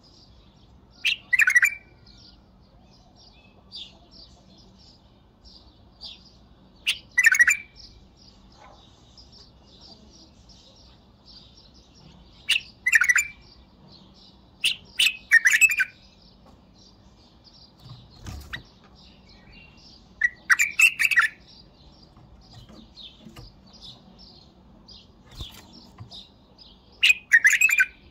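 White-eared bulbul singing loud short whistled phrases, six of them a few seconds apart. A faint, constant high chirping of small birds runs under them.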